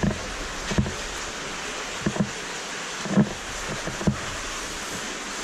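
Boots and hands scuffing and knocking on cave rock as cavers clamber over flowstone: about six short knocks, the loudest a little past three seconds in, over a steady rushing hiss.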